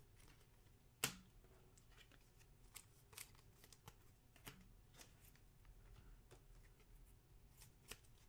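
Faint handling of trading cards: quiet clicks and slides as cards are flipped through one at a time, with one sharper snap about a second in.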